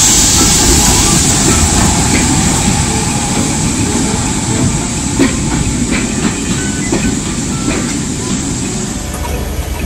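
LMS Black Five steam locomotive 45212 rolling past with a loud hiss of steam that fades over the first couple of seconds, then its coaches rumbling by with a few sharp wheel clicks on the rail joints.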